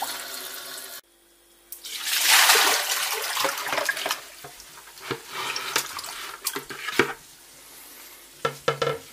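Tap water running into a plastic basin of salted fish. Then, about two seconds in, the basin is tipped and water and the rinsed pike and perch pour out into the sink with a loud splash, followed by scattered wet knocks and clatter of fish and basin against the sink.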